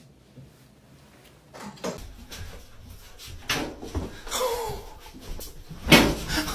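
A run of knocks and thumps, ending in a loud bang about six seconds in.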